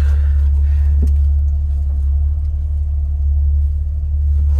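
Jeep's engine and drivetrain running while driving slowly, a steady deep rumble heard from inside the cabin.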